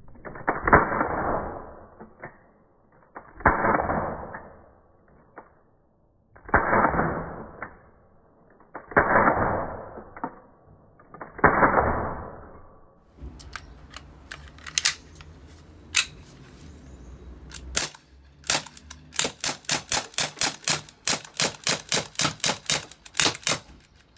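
CO2 blowback air pistol (ASG CZ 75 P-07 Duty) firing. The first five shots are played slowed down, each a long, muffled bang. Then come a few sharp single shots at normal speed and a rapid string of about fifteen shots, about three a second.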